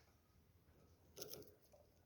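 Near silence, with a brief run of faint clicks a little over a second in.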